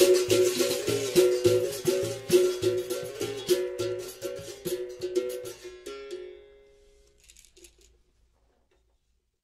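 Berimbau playing a solo rhythm, the struck wire alternating between two notes with the caxixi rattle on the strokes. It fades out and ends about six seconds in, followed by one last brief shake of the caxixi.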